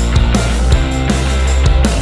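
Background rock music with a steady drum beat, about two hits a second, over sustained bass notes.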